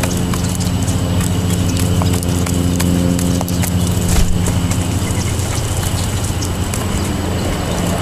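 Wild turkey pecking seed off asphalt, its beak striking the pavement in quick, irregular taps, over a steady low hum.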